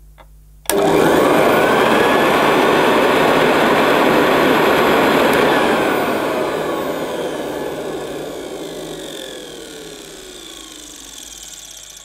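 Motor of a 1973 Hoover Senior upright vacuum cleaner, hood off and no agitator fitted, switched on: it starts suddenly about a second in, runs loud and steady, then winds down with a falling whine over the second half. It runs a bit squeaky, a squeak the owner puts down to the motor's top bearing.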